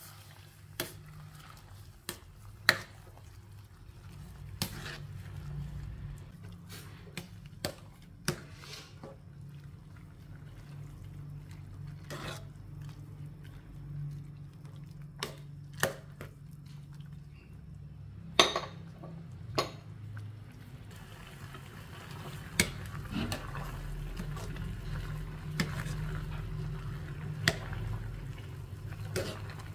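Metal ladle stirring sliced flowers and vegetables in broth in a metal soup pot, knocking sharply against the pot now and then, with liquid sloshing that grows louder in the last third. A steady low hum runs underneath.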